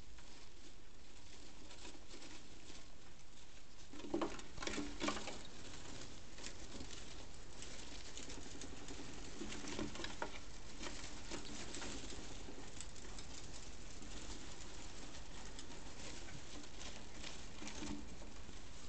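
Gerbils scrabbling and scurrying over wood shavings in a plastic tank: a steady patter of small scratches and rustles. A few short low-pitched sounds come in the background, the loudest about four seconds in.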